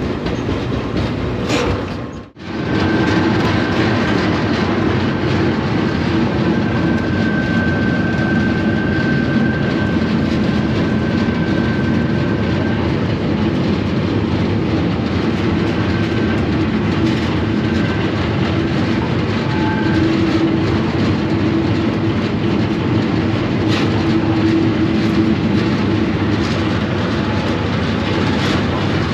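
Freight train running, heard from aboard: a steady loud rumble and rattle of wheels on rail with clickety-clack over the joints. The sound cuts out briefly about two seconds in.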